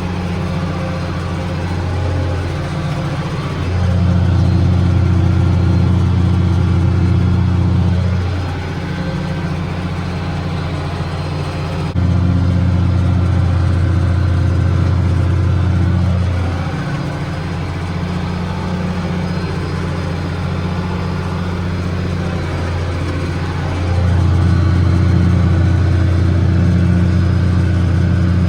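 Tractor engine running steadily while pulling a 15-foot batwing rotary mower. It holds one pitch and grows louder for a few seconds at a time, three times.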